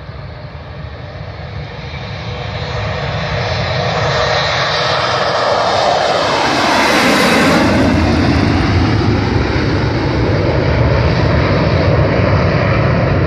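Boeing 737-200's JT8D turbojet engines at take-off power as the jet flies low overhead. The sound grows steadily louder, and about seven seconds in it peaks with a falling sweep in pitch as the aircraft passes. A loud low rumble follows as it climbs away.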